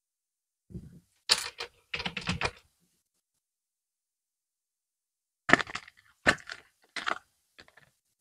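Small hard plastic doll shoes and their plastic packaging being handled: quick bursts of light clicking and rattling, one group about a second in and another from about five and a half seconds in, with dead silence between.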